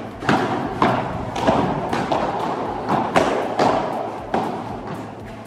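A padel rally: the ball is hit by rackets and bounces on the court in a string of sharp hits, about one or two a second, each echoing in a large indoor hall.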